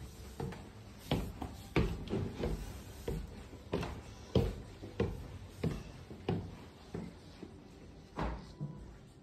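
Footsteps going up wooden stairs and then along the floor, a steady run of dull thuds about one every two-thirds of a second.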